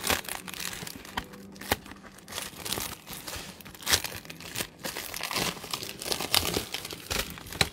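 Crinkly plastic packaging on a Pokémon card box being handled and torn, giving irregular crackles with a few sharper snaps, the loudest about four seconds in.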